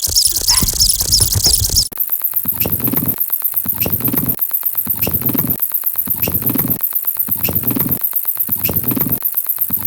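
Looped cartoon sound effects: rapid high squeaky chirps. About two seconds in, these switch abruptly to a steady repeating loop of low pulses, about one and a half a second, with fast ticking and a thin high whine over it.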